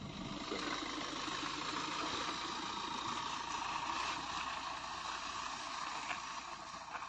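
Maruti Suzuki Swift hatchback driving slowly over a dirt field, heard from outside: a steady noise of engine and tyres on loose ground, easing slightly near the end as it moves away.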